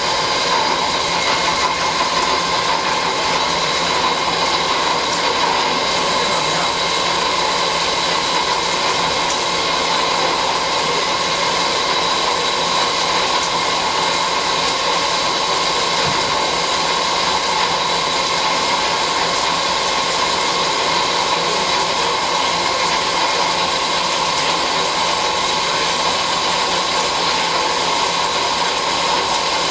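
DHL-1120x2000 flat-bed CNC lathe machining a part: steady, unbroken running and cutting noise with constant high whining tones over it.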